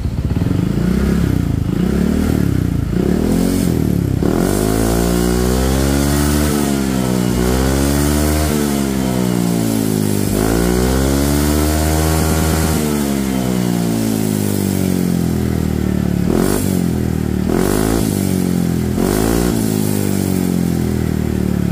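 Honda PCX 160 scooter's single-cylinder, liquid-cooled engine revved through an SKR Racing aftermarket slip-on muffler. It gives a few short throttle blips, then two long revs rising and falling in pitch, then more short blips near the end. The note is 'adem', mellow rather than loud.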